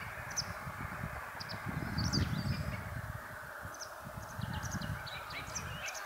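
Small birds chirping outdoors: short, high, scattered calls, busiest around two seconds in and again near the end. They sit over a steady hiss and a low, gusting rumble.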